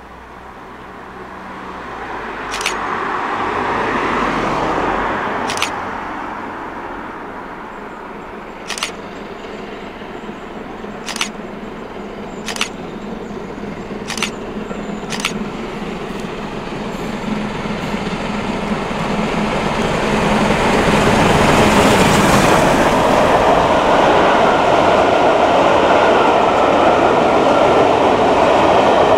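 LMS Jubilee class 4-6-0 steam locomotive 45596 Bahamas and its train of coaches approaching and passing close by. The noise grows steadily louder and is loudest over the last third. Seven sharp clicks sound in the first half.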